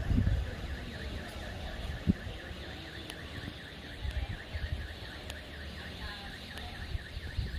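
A distant car alarm warbling: a falling-and-rising tone repeated about three times a second, over a low rumble on the microphone, with one sharp knock about two seconds in.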